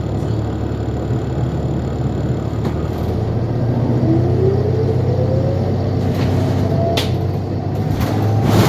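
Interior of a 2021 New Flyer XDE40 Xcelsior diesel-electric hybrid bus under way: a steady low rumble and hum, with a whine rising in pitch from about four seconds in as the drive speeds up. A sharp click comes about seven seconds in, and a brief louder burst of noise near the end.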